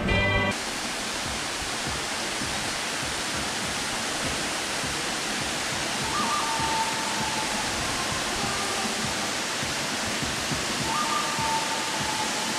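Steady rushing of falling water from the waterfall in the gorge below. A short two-note whistle sounds twice, about five seconds apart.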